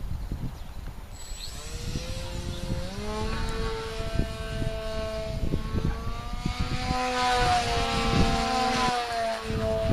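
Small RC model plane's propeller buzzing as it flies, coming in about a second in, rising in pitch around three seconds and then wavering up and down. The prop is noisy because of a slight nick on one blade. Wind buffets the microphone throughout.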